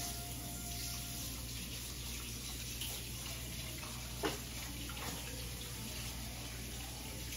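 Kitchen tap running water into a sink, with a short clink about four seconds in.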